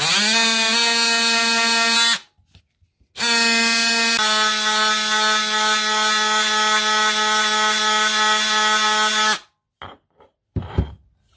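Electric oscillating multi-tool with a triangular sanding pad, sanding down hardened filler putty on a marble clock part. It gives a steady buzzing whine that rises as it starts, runs about two seconds, stops, then starts again about a second later and runs some six seconds before switching off. A few faint knocks follow.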